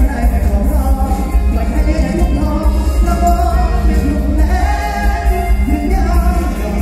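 Live mor lam music in the toei style: a loud, steady band with a heavy bass beat under a melody, and a voice singing.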